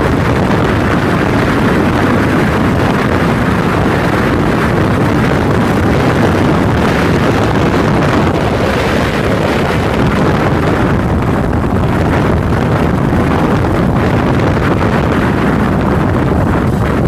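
Yamaha SRX400 motorcycle under way: wind rushing over a phone microphone mounted beside the fuel tank, over the single-cylinder engine running. The noise stays steady and loud throughout.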